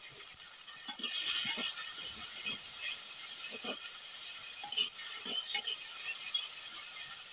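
A steel ladle scraping and clicking against the inside of an earthenware pot as a wet onion-spice masala is stirred, over a steady sizzling hiss from the cooking masala. A brighter burst of hiss comes about a second in.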